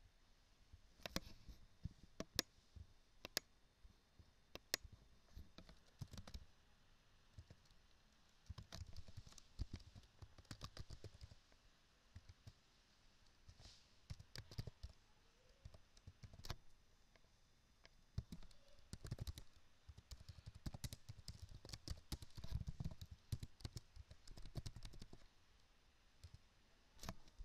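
Computer keyboard being typed on, heard faintly as irregular runs of sharp key clicks, with a few single clicks in the first few seconds.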